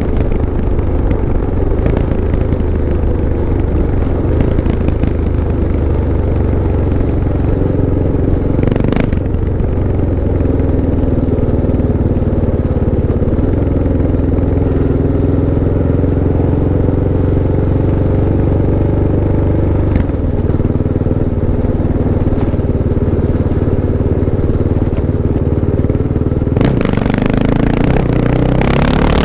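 Kawasaki KLX650 single-cylinder four-stroke motorcycle engine running at a steady speed. Near the end the sound changes, with more noise in the upper range.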